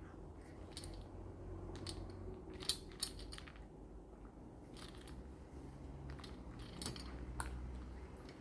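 A pet crunching dry kibble: irregular crisp crunches and clicks, with two sharper, louder ones about three seconds in.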